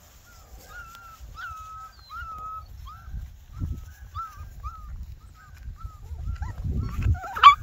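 A puppy whimpering in a string of short, high whines, about a dozen in a row, then one louder yelp near the end.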